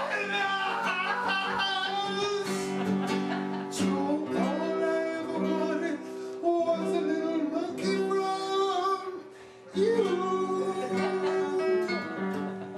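A song: a man singing over acoustic guitar, with a short break about nine seconds in.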